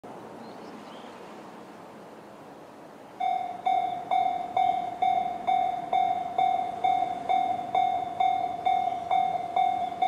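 Japanese railway level-crossing alarm in the JR standard electronic tone, switching on about three seconds in and sounding a steady repeated ding a little over twice a second, each strike fading quickly: the crossing warning that a train is approaching.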